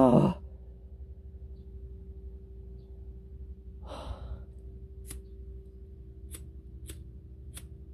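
A short sigh about four seconds in. Then a disposable flint lighter is struck again and again, a sharp click every half-second to second, over a faint steady hum.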